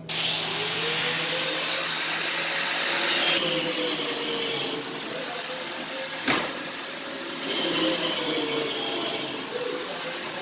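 A motorised workshop tool running, starting abruptly: a loud, steady hissing whir with a whine that wavers in pitch, and a single sharp knock a little past halfway.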